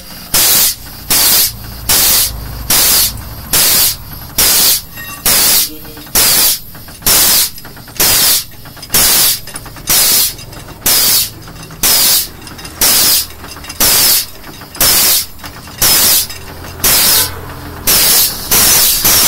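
Pneumatic pump of an air-operated 100-ton hydraulic bottle jack running, with a sharp air-exhaust hiss on each stroke in an even rhythm a little faster than once a second, while the jack is being pumped.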